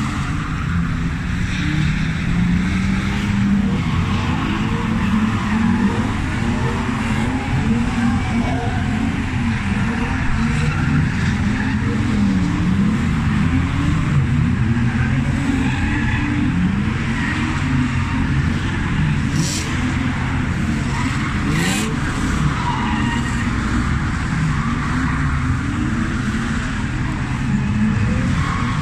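Drift cars running on the track, their engines rising and falling in pitch with the throttle throughout, along with tyre squeal from the slides.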